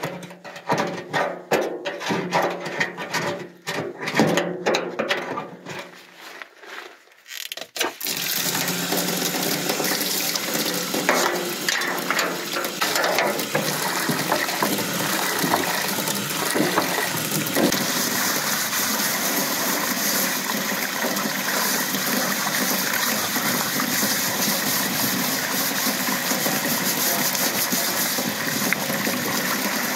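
Rhythmic scrubbing strokes of a scourer on a foamy enamelled bathtub. About eight seconds in they give way to a hose spray hitting the tub with a steady rush of water.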